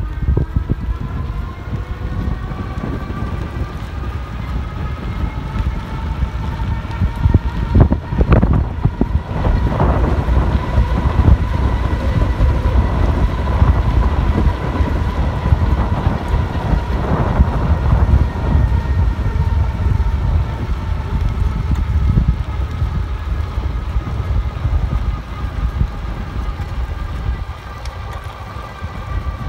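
Electric bike hub motor whining under pedal assist, the whine rising in pitch over the first several seconds as the bike speeds up from a standstill, then holding steady at cruising speed. Heavy wind rumble on the microphone and road noise run underneath, with a sharp knock about 8 seconds in.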